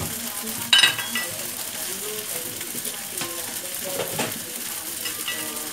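Rice vermicelli sizzling as it fries in an aluminium wok, with a sharp clank of the spatula against the wok a little under a second in and a smaller one about four seconds in.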